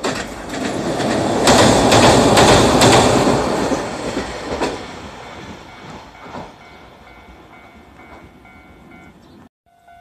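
Hiroden 3700-series tram passing, its running noise swelling over the first few seconds with repeated wheel clacks over rail joints, then fading away. A level-crossing bell rings faintly in the background, and the sound cuts off shortly before the end.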